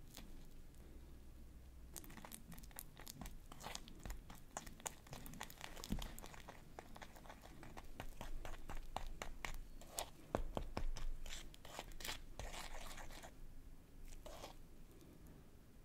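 Small spatula stirring thick icing in a small ceramic bowl as dark colouring is worked in. Sticky squelching and scraping with quick clicks against the bowl start about two seconds in, loudest a little past the middle.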